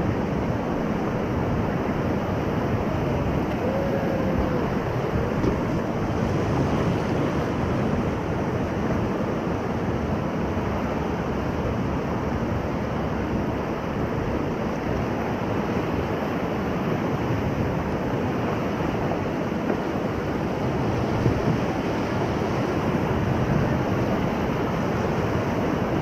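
River rapids rushing steadily around a whitewater raft, heard from close on the raft, with wind buffeting the microphone.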